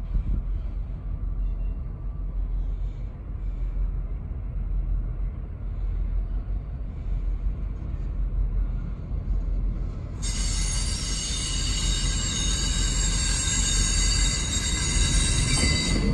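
A train rolling past with a steady low rumble. About ten seconds in, a high-pitched, steady wheel squeal starts suddenly and holds to the end.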